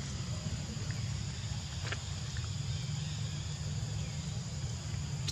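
Steady outdoor ambience: a constant low rumble with a faint, unbroken high insect drone above it, and a couple of faint clicks about two seconds in.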